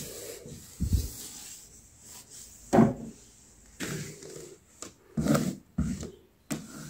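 Things being moved and set back down on a wooden dresser top while it is wiped with a wet wipe: a string of irregular knocks and thuds, about six in all, with faint rubbing and rustling between.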